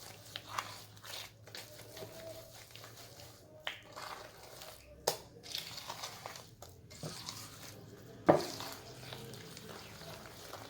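A soft, sticky batter of creamed butter, sugar, eggs, oil, lemon zest and coconut being mixed in a bowl, with squishing and scraping sounds and a few sharp knocks against the bowl, the loudest about eight seconds in.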